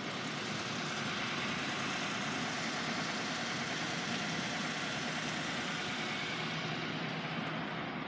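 Steady vehicle engine hum with no distinct events.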